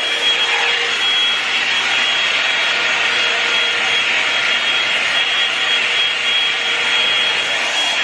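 Revlon One-Step hot-air brush dryer running steadily: a constant rush of blown air with a thin, steady high whine from its fan motor.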